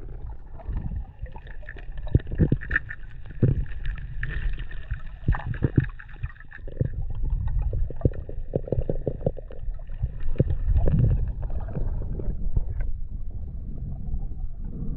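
Underwater sound picked up during a freshwater spearfishing dive: a muffled rumble of water movement with irregular knocks and clicks. A faint steady high whine runs through most of it and fades out near the end.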